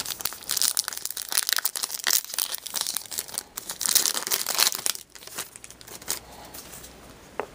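Wrapper of a hockey card pack crinkling and tearing as it is opened: dense crackling for about five seconds, then softer rustling with one sharp click near the end.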